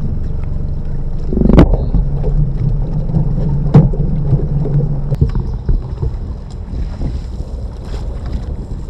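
Electrofishing boat's motor and generator running with a steady hum and a thin high tone over it, broken by three sharp knocks; the hum quietens in the second half.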